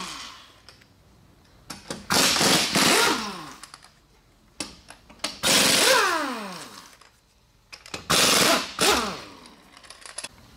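Pneumatic impact wrench taking off wheel lug nuts in three bursts of hammering. Each burst ends in a falling whine as the air motor spins down.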